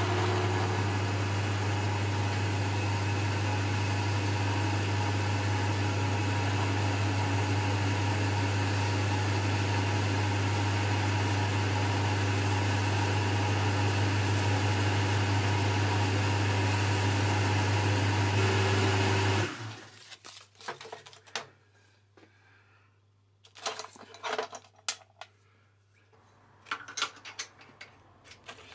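Boxford metalworking lathe running steadily with a strong low hum, spinning the steel probe in its collet chuck while a flat strip is held against the stem to finish it. The motor cuts off about two-thirds of the way through, followed by scattered clicks and taps as the part is handled in the chuck.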